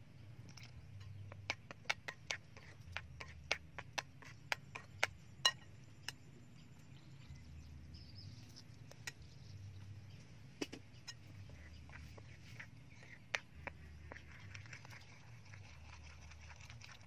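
Sharp clinks of a metal spoon against a ceramic mixing bowl, about two a second for a few seconds, then a few scattered clinks and soft scraping as the flour batter is stirred.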